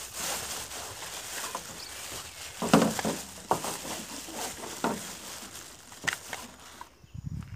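Thin plastic bag rustling and crinkling as hands open it and rummage inside, with several sharp knocks of hard objects bumping about. The loudest knock comes almost three seconds in. The rustling stops near the end, and a few low thumps follow.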